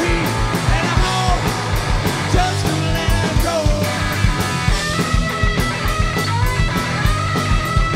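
Live rock band playing an instrumental passage at full volume: electric guitar over a steady drum beat, with held high guitar notes through the last few seconds.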